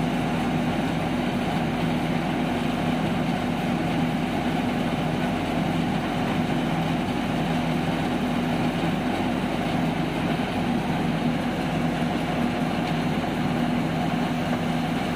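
Tractor-powered rice mill running steadily while milling paddy: the Farmtrac tractor's diesel engine drives the huller and polisher at constant speed, giving an even machine hum with a steady low drone.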